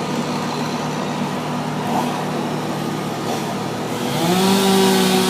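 A small engine running steadily, then revving up higher and louder about four seconds in.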